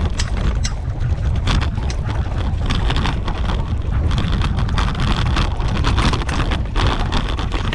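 Wind buffeting the microphone of a camera moving fast along a rough dirt trail, a steady low rumble with frequent irregular knocks and rattles as the rig jolts over the ground behind a pulling husky team.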